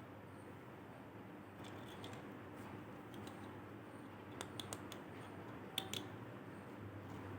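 Plastic toy packaging being handled and cut open: scattered sharp clicks and snips, a quick cluster about four and a half seconds in and the loudest pair near six seconds, over a faint steady hum.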